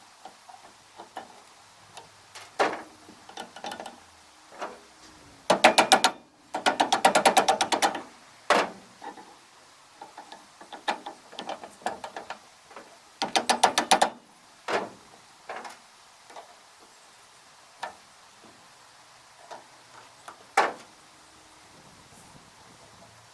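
Hand work on a square baler: scattered metal clicks and knocks, with three loud bursts of fast, even ratchet-like clicking, two of them back to back around six to eight seconds in and one near fourteen seconds.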